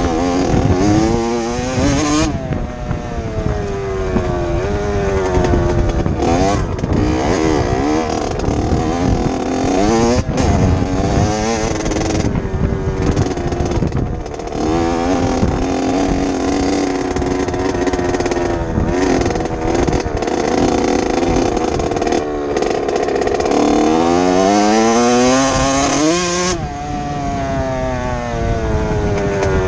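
Two-stroke dirt bike engine being ridden hard, its pitch repeatedly climbing under throttle and dropping off as the rider shifts or lets off.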